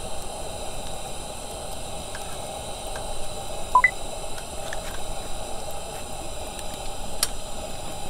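Wood fire burning under a roasting rack, with a steady hiss and scattered crackles and pops. A short rising chirp stands out about four seconds in.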